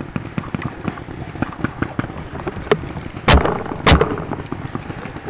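Two sharp shots from a paintball marker a little over half a second apart, about three seconds in, over a steady crackle of dry leaves and twigs as the player moves close to the ground.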